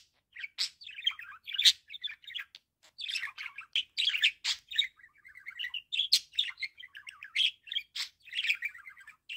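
Budgerigar warbling close up: a fast chatter of short chirps and clicks, with a brief pause about three seconds in.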